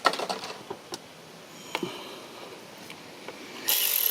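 Light clicks and taps of metal tools working in a car's engine bay, a few scattered knocks over the first two seconds. Near the end a loud, steady, hissing whir starts.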